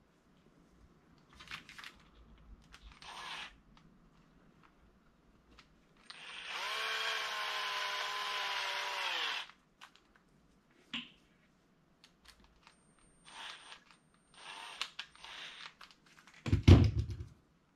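A cordless drill-driver's motor runs steadily for about three seconds, driving a terminal screw into a plug, and its pitch drops slightly as it stops. A few shorter bursts of noise come before and after, and near the end there is a loud thump as the drill is set down on the wooden bench.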